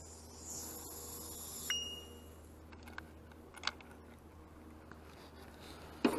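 Faint handling noises of a bass on a lip-grip tool in a small boat: a soft hiss at first, then a single metallic clink with a brief ring a little under two seconds in, and a few light clicks later.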